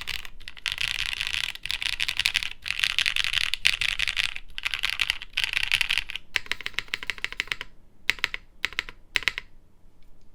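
Fast typing on a plateless aluminium Martingale60 keyboard with lubed Leobog Kayking long-pole switches: dense runs of key clicks with brief pauses between them. Near the end it slows to a few short bursts of keystrokes and stops.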